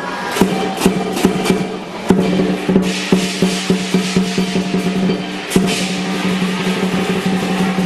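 Lion dance percussion playing: a big drum struck in sharp strokes over a held metallic ring, with cymbals clashing. The strokes come faster and the playing grows denser about two seconds in.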